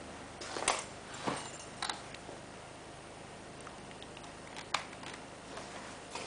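Quiet room tone broken by a few short clicks and soft knocks, four of them spread over the first five seconds.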